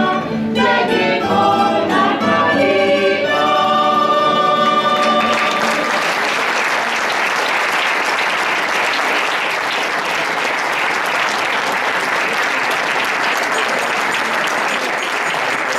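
A choir with guitars and other plucked strings finishes a Christmas carol (villancico), ending on a held note about five seconds in. The audience then breaks into steady applause.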